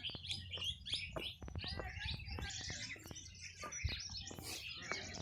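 Many small birds chirping and twittering together: a dense run of quick, overlapping high chirps.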